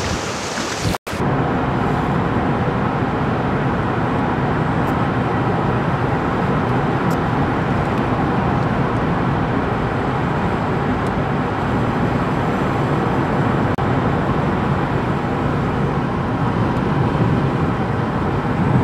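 Steady road and engine noise of a car driving through a highway tunnel. About a second in, a short burst of river wind and water cuts off abruptly before it.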